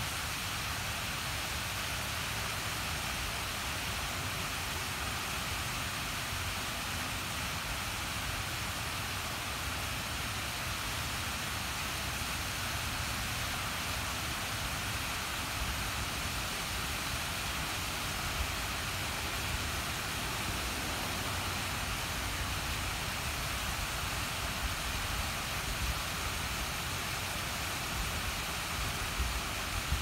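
Water cascading down the tiers of a large outdoor fountain: a steady rush of falling, splashing water, with a low rumble underneath.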